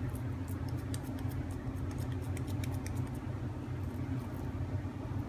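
Steady low hum, with faint soft clicks and ticks scattered through the first three seconds or so from hands shaping raw chicken mince.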